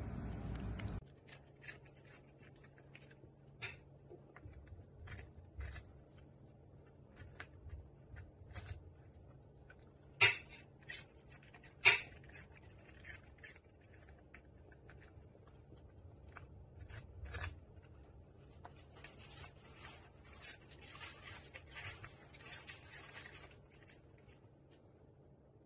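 Small dog chewing a carrot: a long run of short, crisp crunches with two much louder ones about ten and twelve seconds in. Before it, a cat lapping water for about the first second.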